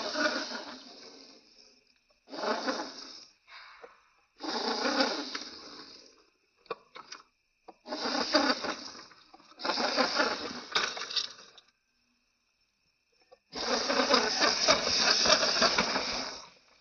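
Radio-controlled rock crawler driven in six short bursts of throttle, its tyres scrabbling and crunching over rock with quick clicks of grit, stopping between bursts; the longest burst comes near the end.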